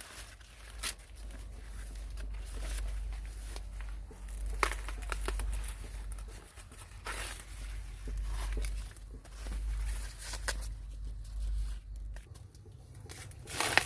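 Intermittent rustling and crackling, as of dry plant material being handled, over a deep steady rumble that stops about 12 seconds in. There is a louder sharp crackle near the end.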